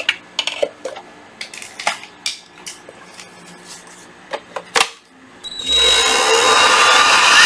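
Clicks and knocks of a Makita 14.4V cordless dust blower being handled and a battery pack snapping into it, then about two seconds before the end the blower's motor spins up and runs, a loud rushing of air with a steady whine.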